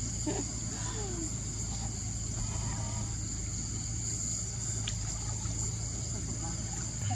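Steady insect chorus: a continuous high-pitched trilling, over a low steady hum.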